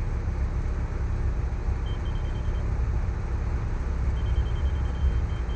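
Heavy diesel earthmoving machine running steadily with a low rumble, while a laser grade receiver on the grade rod gives rapid high-pitched beeps about two seconds in and again from about four seconds on, signalling the rod's reading against the laser grade.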